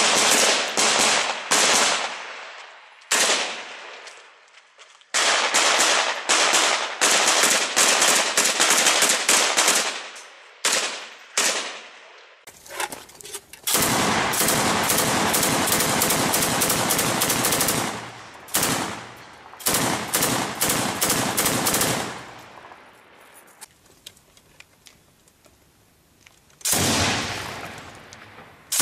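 Close-range gunfire from a Kalashnikov-pattern rifle and a belt-fed machine gun. Single shots and quick strings of shots give way to long machine-gun fire lasting about eight seconds with a brief break. After a quieter lull, another burst comes near the end.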